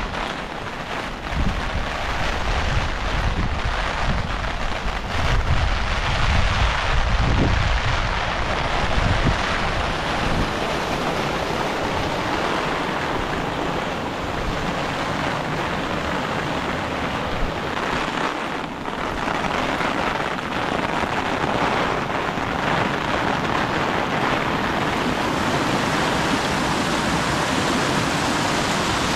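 Heavy rain falling steadily, a dense hiss of water. Wind buffets the microphone in low gusts through roughly the first third.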